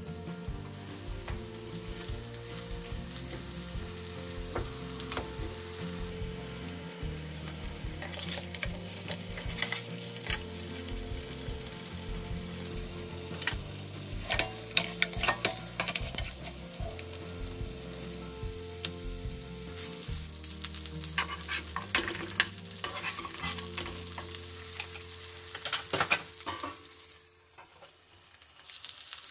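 Beef-and-pork hamburger steak patties sizzling in butter in a frying pan, a steady crackle with sharp spattering pops. Near the end a lid goes on the pan and the sizzle drops away to a muffled hush.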